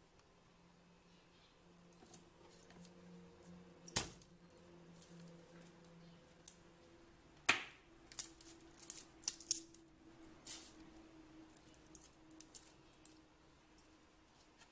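Slightly blunt kitchen knife cutting a raw garlic clove on a wooden chopping board: two sharp knocks, about four and seven and a half seconds in, then a run of quieter clicks and taps.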